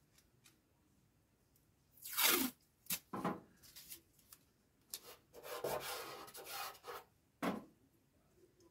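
Masking tape pulled off the roll in several strips, torn off and pressed down by hand. The longest pull comes about five seconds in.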